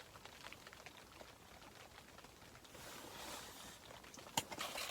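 Faint rustling and small clicks of hands handling fishing tackle, with one sharper click near the end.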